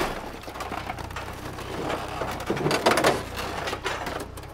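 Recorded car destruction: a car body being dragged and shoved by a forklift against concrete K-rail barriers, with metal scraping, creaking and crunching over a steady low hum of the forklift's engine. The grinding swells to its loudest about halfway through.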